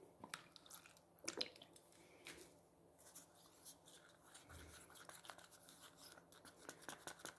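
Faint clicks and scrapes of a wooden stick stirring thick acrylic paint in a plastic cup, a little louder about a second and a half in.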